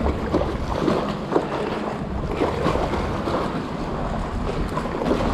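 Stand-up paddleboard paddle pulling through choppy water, with irregular splashing and water slapping around the board, over a steady low rumble of wind on the microphone.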